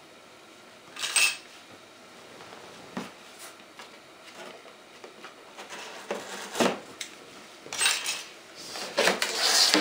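A cardboard box being opened and its packaged parts handled: scattered rustles, knocks and small clatters, busier and louder in the last few seconds.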